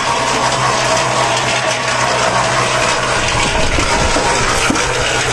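Electric concrete mixer running after being switched on, its drum turning with a steady motor hum under a loud, even rushing noise.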